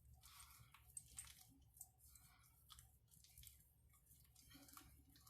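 Faint wet squishing and swishing of a dense shaving brush working soft shave soap into lather in a bowl, in uneven strokes with a few small clicks.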